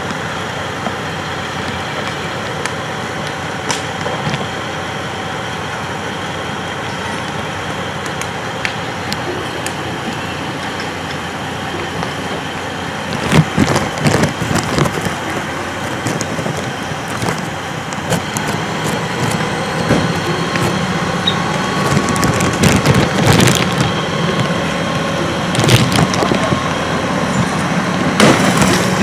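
A full-size truck burning in the engine area, with sharp pops and cracks that come more often from about halfway through, over the steady running of a fire engine.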